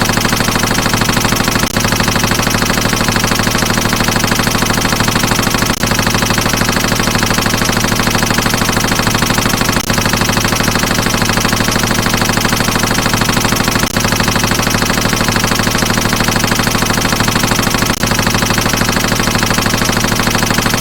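Machine gun sound effect: continuous rapid automatic fire with no pauses, except a brief dip about every four seconds.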